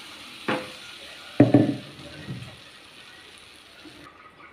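Hot oil and chilli masala sizzling in a nonstick kadai as ground tomato paste is poured in from a steel vessel, with a short knock about half a second in and a louder thump about a second and a half in. The sizzle stops abruptly about four seconds in.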